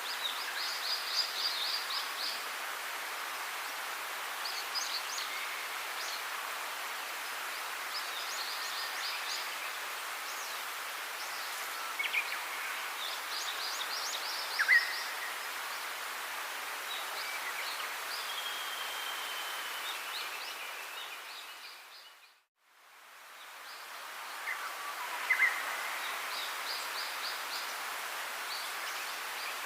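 Birds chirping, with short repeated trills, over a steady outdoor hiss. The sound fades out and back in about two-thirds of the way through.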